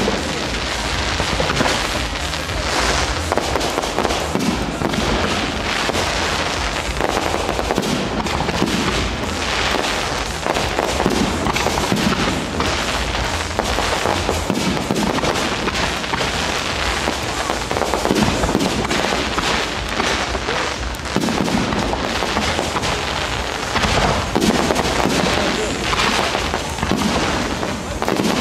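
Fireworks display: aerial shells and crackling stars bursting in a dense, continuous volley of bangs, many a second, with no pause.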